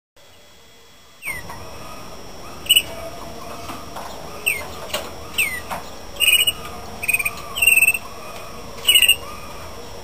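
Male Malinois (Waterslager) canary beginning to sing. After about a second of near silence come a few short chirps and falling notes, then three louder, rolling phrases near the end, all over a steady background hiss.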